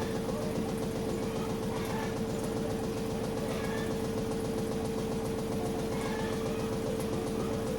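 Samsung top-load washing machine running, a steady motor hum with a constant tone held throughout.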